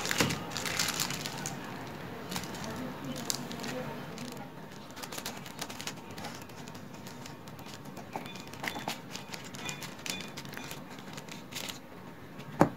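Plastic packet of samosa pastry strips crinkling as it is handled and cut open with scissors: scattered small clicks and rustles.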